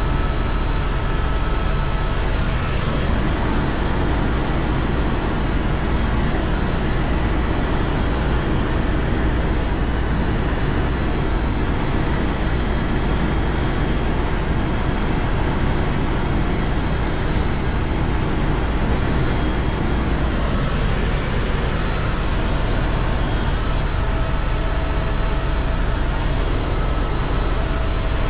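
Tour helicopter in steady flight heard from aboard: a loud, constant drone of rotor and turbine with a few faint steady whines over it.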